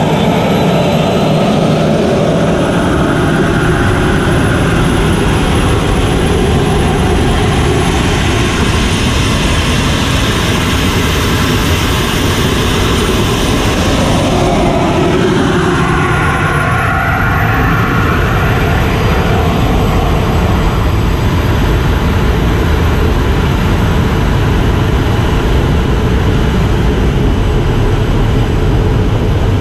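BD-5J micro jet's Microturbo TRS-18 turbojet heard from inside the cockpit: a loud steady rush under a high turbine whine. About sixteen seconds in, the whine dips, then climbs higher as the engine spools up for the takeoff roll.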